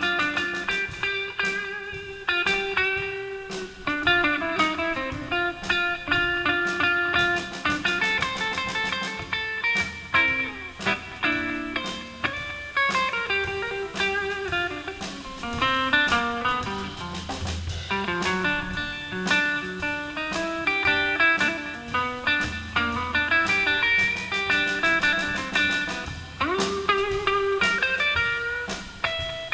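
Blues guitar playing an instrumental break in a slow blues: picked single-note lines with bent notes.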